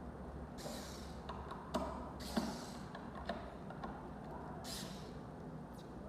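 Lock parts being handled and fitted while a deadbolt smart lock is assembled: scattered light clicks and knocks, the two loudest about two seconds in, and three short rustles, over a steady low hum.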